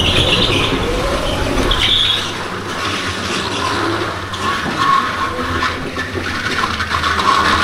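Go-kart driving round a smooth indoor concrete track, heard from on board: a steady running noise, with short tyre squeals as it corners near the start and again about two seconds in.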